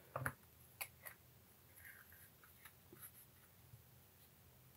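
Faint scattered clicks and light scratchy taps of small plastic model-kit parts being handled and fitted together, over near-quiet room tone.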